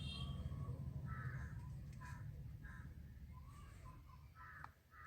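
Crows cawing, faint and repeated, about five short caws over a low rumble that slowly fades.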